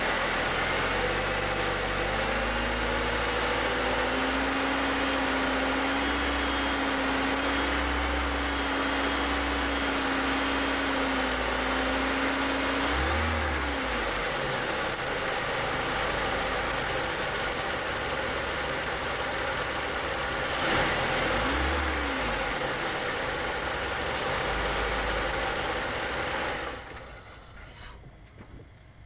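A Chevy Cavalier's 2.2-litre four-cylinder engine is revved up from idle and held at raised speed for about ten seconds, then eases back, with two short blips of the throttle later on. The engine sound cuts off sharply near the end. It is revved to bring out a ticking above idle, around 2,000 rpm, which the owner suspects may be a slack timing chain.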